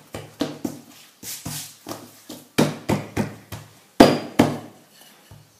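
Hands patting and slapping a ball of risen yeast dough flat on a stone countertop: a run of sharp slaps, about two or three a second, the loudest about two and a half and four seconds in.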